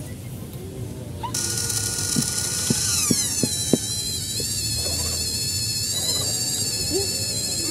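Small electric motor and geartrain of an RGT 186100 1/10-scale RC crawler whining under load on a steep climb, starting suddenly about a second in. The pitch dips around three seconds and then wavers, with a few light clicks between two and four seconds in.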